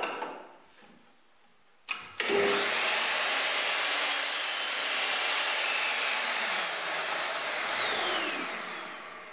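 Metabo KGS 254 PLUS sliding miter saw switched on with a click about two seconds in. Its motor whines up to speed and the blade cuts through a short piece of wood, then the saw is let go and winds down with a long falling whine. Light knocks at the start as the workpiece is set against the fence.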